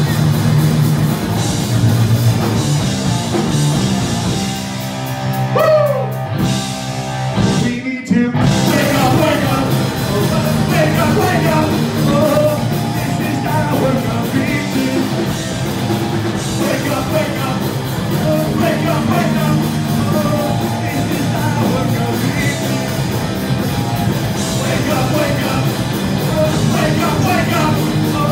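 Live rock band playing loud: electric guitars, drum kit and a singer. A little over four seconds in the band thins to a few held guitar notes with a bend, stops for a moment near eight seconds, then comes crashing back in and plays on.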